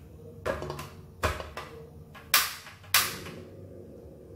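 Four sharp knocks, the last two the loudest, each ringing briefly.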